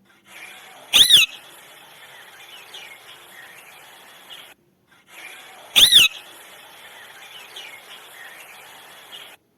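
A parrot gives two loud, short calls about five seconds apart, each a quick rise and fall in pitch. Faint chirping runs underneath and drops out briefly between the two calls.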